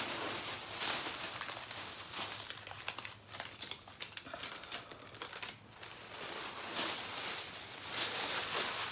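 Clothing being handled: irregular rustling and crinkling as garments are moved, folded and picked up, louder at the start and again near the end.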